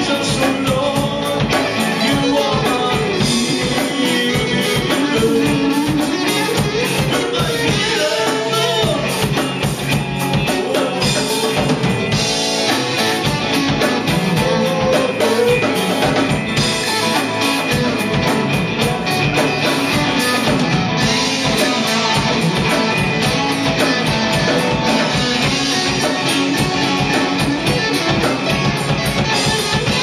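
A live band plays: two electric guitars, a man singing into a microphone, and drums keeping a steady beat.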